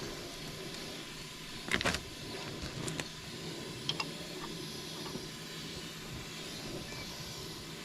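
Hydraulic fittings and tools being handled: a few light metal clicks and knocks, the loudest about two seconds in, over a steady low hum.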